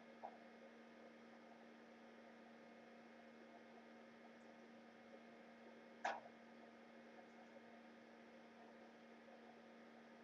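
Near silence: a steady faint electrical hum over low hiss. A short sharp click or knock sounds about six seconds in, with a fainter one just after the start.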